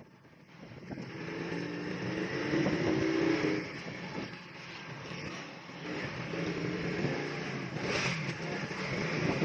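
Small motorcycle engine running under way, with road and wind noise. It gets louder over the first three seconds or so, drops back around four seconds in, then picks up again.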